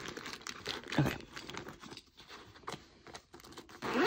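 Rustling and crinkling of a Longchamp nylon pouch and the items stuffed inside it as hands press and shift them to get the overstuffed pouch closed, with a louder rustle about a second in.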